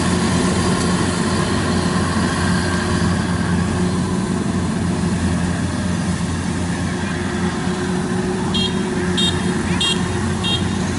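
Kubota DC-93 rice combine harvester's diesel engine running under load with a steady drone while it cuts rice in a muddy paddy. Near the end a run of short, high-pitched peeps comes about twice a second.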